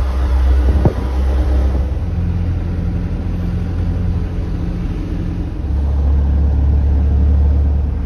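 Mercedes-Benz Vario expedition truck's diesel engine and road noise heard from inside the cab while driving: a steady low rumble that grows louder about five and a half seconds in, with a short knock about a second in.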